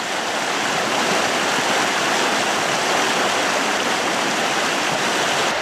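A swollen creek rushing steadily close by, its water running high after two weeks of rain.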